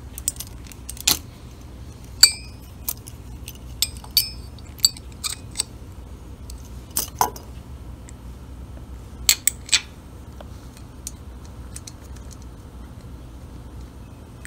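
Sharp metal clicks and clinks as a small timing cover and its screw are fitted by hand onto a motorcycle engine, about a dozen in all. A few ring briefly, the loudest about two seconds in, with pairs of clicks near seven and nine and a half seconds.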